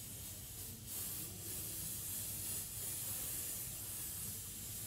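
Inverted can of air duster spraying liquid cold spray onto an LCD TV's T-con board in a steady hiss that strengthens about a second in. The board is being frozen to look for a temperature-sensitive fault behind the screen's flicker.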